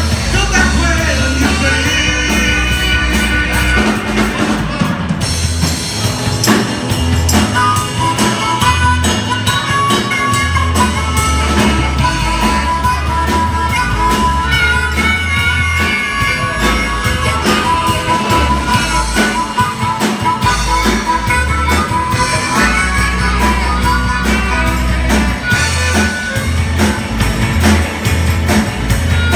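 Live rock band playing a bluesy rock-and-roll number on electric guitars and drum kit, with long held, bending harmonica notes over the band through the middle of the passage.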